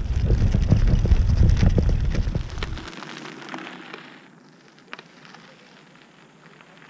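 Touring bicycle rolling over a gravel road: the tyres crunch and crackle on loose stones over a loud low rumble. After about three seconds the sound drops to the faint crunch of the bike riding away over the gravel, with one sharp click about five seconds in.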